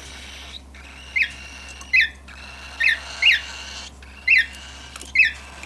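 Baby cockatiel fledgling giving short, sharp calls, about six in a row at roughly one a second, each a quick rise and fall in pitch: food-begging calls while being hand-fed.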